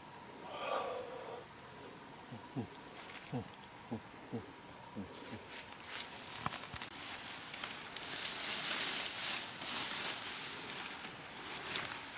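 Insects singing steadily at a high pitch, with a few short sounds sliding quickly down in pitch. From about five seconds in, leaves and ferns rustle and crackle loudly as someone pushes through dense undergrowth on foot.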